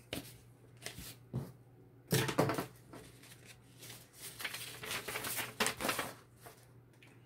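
Paper instruction leaflet rustling and crinkling as it is handled and unfolded, in short irregular spells with a few light knocks.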